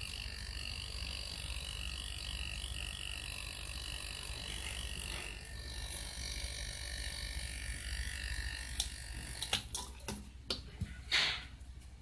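Cut-open hermetic refrigerator compressor running on test with a steady low hum. Its valve is fitted upside down, which the technician identifies as the fault. Several sharp clicks and knocks come near the end.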